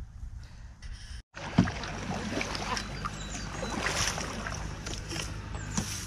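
Kayak being paddled: double-bladed paddles dipping and splashing water in irregular small splashes and clicks, with a steady low rumble of wind on the microphone. It starts after about a second and a half of faint background.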